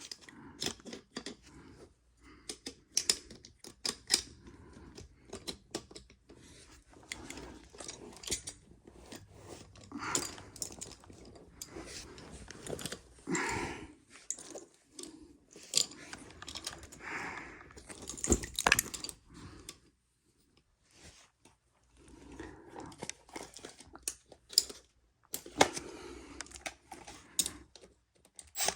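Scattered clicks, light clinks and rustling of hands at work on tools and parts, irregular and stop-start, with a near-quiet pause about two-thirds of the way through.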